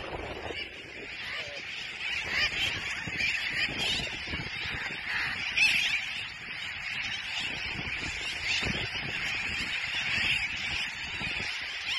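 A large flock of terns calling as they wheel overhead above their nesting cay: many overlapping cries forming a continuous din.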